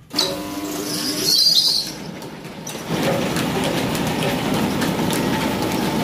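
A 10 hp flour-mill (chakki) electric motor switched on at its starter, humming as it comes up to speed. From about three seconds in, the motor and its belt-driven mill run steadily with a rattling mechanical noise.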